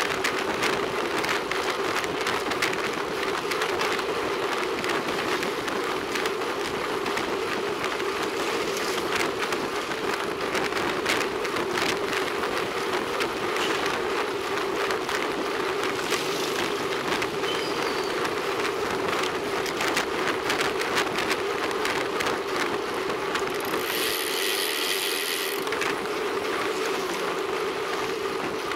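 Steady road and wind noise from a moving road bicycle, picked up by a camera mounted on the bike, with a constant hum and quick rattling clicks throughout. A brief high-pitched sound comes in about 24 seconds in.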